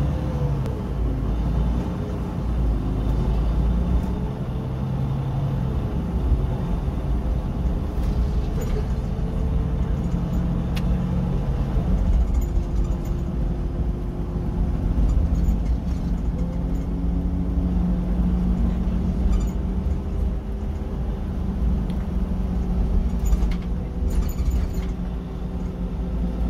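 Iveco Crossway LE bus heard from inside the passenger cabin while driving. The engine and drivetrain run with a tone that rises and falls as the bus changes speed, over a steady road rumble, with occasional light rattles.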